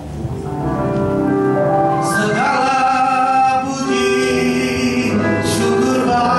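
Live gospel worship song: a man's lead voice with women's voices singing together over band accompaniment, fading up to full volume over about the first second.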